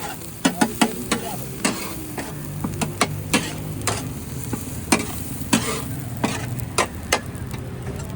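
Daal anda tikkis frying in hot oil, sizzling, while a metal spatula taps and scrapes against the pan in sharp, irregular clicks about twice a second.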